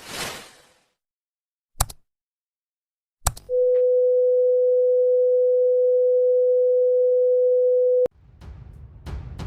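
A single steady electronic beep tone, held for about four and a half seconds and cut off abruptly, preceded by a brief whoosh and two sharp clicks; low rumbling noise with crackles follows near the end.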